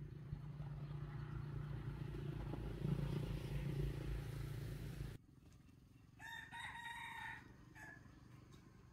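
A low steady rumble that cuts off suddenly about five seconds in. About a second later a rooster crows once, a single drawn-out call of a little over a second, followed by a brief short note.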